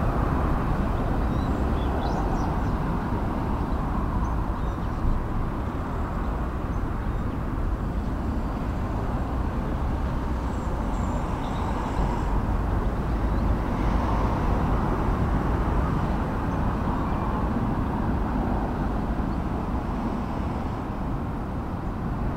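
Steady outdoor background noise, a low rumble with a hiss above it, at an even level throughout, with a few faint high chirps near the start.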